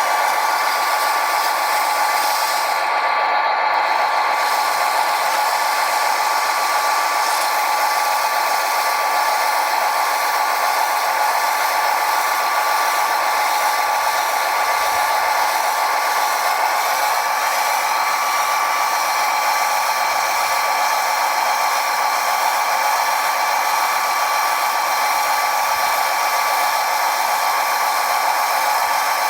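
Electric motors of large radio-controlled construction machines whining steadily and evenly, with several high pitches layered together.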